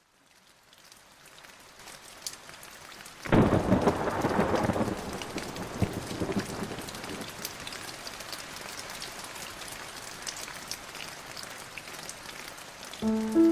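Steady rain fading in, with a loud clap of thunder about three seconds in that rumbles away over several seconds. Piano notes come in at the very end.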